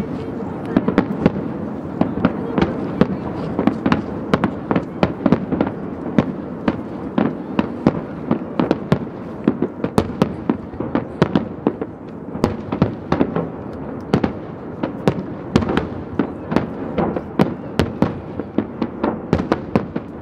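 Fireworks display with shells bursting in quick succession: irregular sharp cracks and bangs, several a second, over a continuous din of overlapping bursts.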